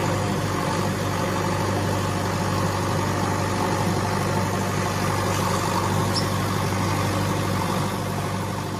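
A JCB backhoe loader's engine running steadily with a low hum, getting quieter near the end.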